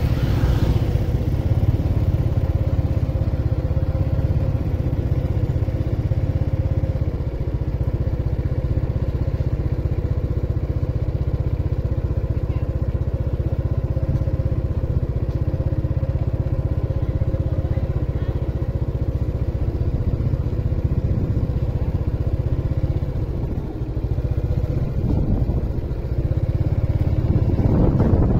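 Motorbike engine running steadily under a low wind and road rumble, heard from a moving bike, with another scooter passing close right at the start.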